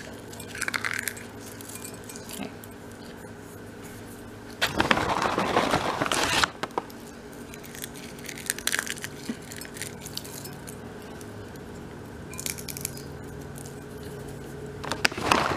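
Pinches of a seed mix with pumpkin seeds, coconut and chia seeds dropping by hand into a glass mixing bowl of oats, with light scattered clinks and ticks. About five seconds in, a rustling rush lasts nearly two seconds.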